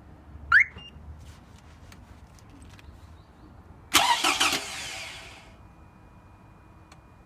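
Toyota Camry 40's 2AZ-FE 2.4-litre four-cylinder engine starting with a loud knock that lasts about a second and a half as it fires, then dies down to a faint steady running sound. A short, sharp rising squeak comes a few seconds before the start.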